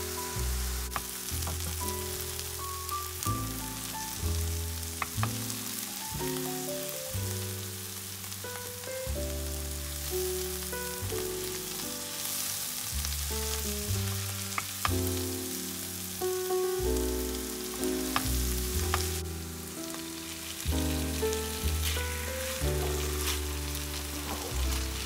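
Sliced mushrooms and onion sizzling as they fry in a pan, with a few clicks of a spatula stirring them. Background music with a moving bass line plays throughout.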